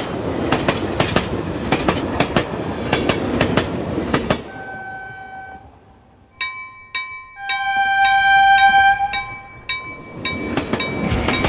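Simulated train sound effects: wheels clattering rhythmically over rail joints for about four seconds. Then the clatter fades and a multi-tone train horn sounds, a few short blasts and then one long blast. The clatter picks up again near the end.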